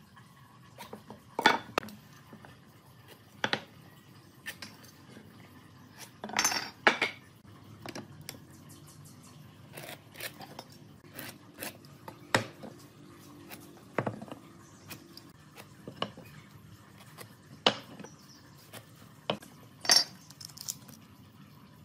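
Irregular sharp clinks and knocks of hard objects, tools or workpieces, being picked up and set down, about a dozen spread out with quiet between them. The loudest come about a second and a half in, around six to seven seconds in, and near the end.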